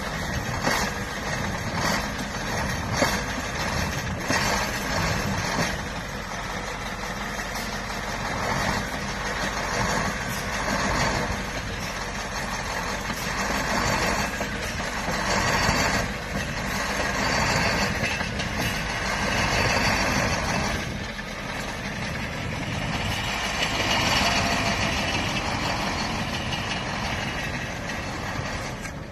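KAMAZ-43118 truck's V8 diesel engine running hard while the truck works through deep snow, its note swelling and easing several times.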